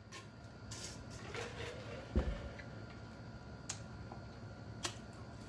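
Drinking from a glass mug: faint swallowing, then a single dull thud about two seconds in as the mug is set down, followed by a few faint isolated mouth clicks.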